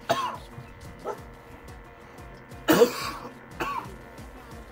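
A person coughs hard once, about two and a half seconds in, with faint music playing underneath.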